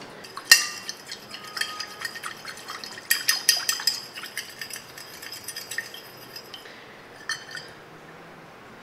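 Metal fork stirring in a ceramic plate, mixing the liquid ramen sauce with water: a string of clinks and scrapes against the plate. They are thickest around three to four seconds in, then thin out to a couple of last taps.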